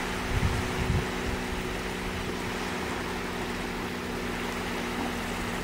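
Steady low engine-like hum from a distant motor under a general outdoor noise, with wind rumbling on the microphone during the first second.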